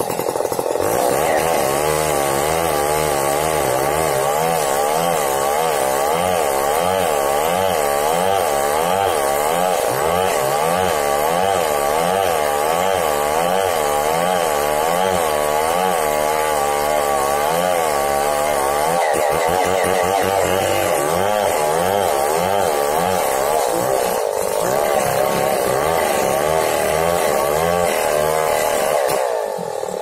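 Chainsaw cutting into the trunk of a large tree, the engine running hard under load with its pitch rising and falling over and over. It eases off near the end.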